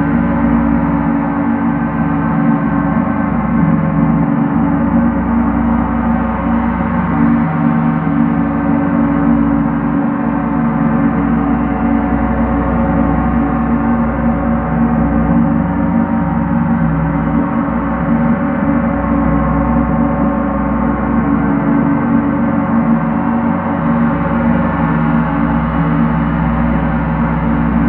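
Large gong played continuously with two soft felt mallets, building a steady, sustained wash of tone. A strong low hum carries many shimmering overtones above it, with no single strike standing out.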